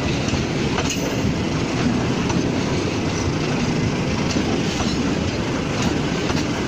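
Fuel tank wagons of a freight train rolling past at close range over a railway switch. Steel wheels rumble steadily on the rails, with scattered clacks as they cross the switch joints.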